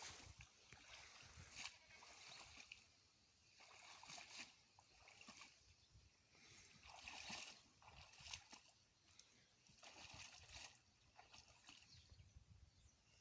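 Faint water sloshing and splashing in shallow pond water, in irregular bursts about once a second, as a person wades through it.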